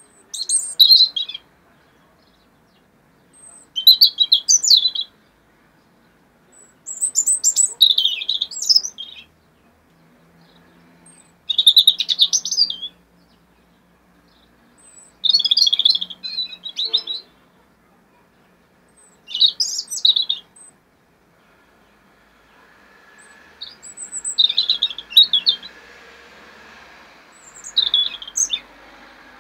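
European robin singing: eight short, high, varied song phrases of a second or two each, separated by pauses of two to three seconds. A faint background noise rises over the last few seconds.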